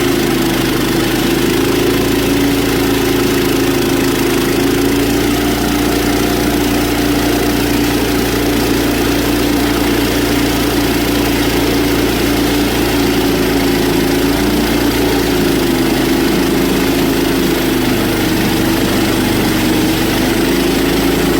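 Engine of a portable sawmill running steadily at a constant level, its pitch sagging slightly now and then.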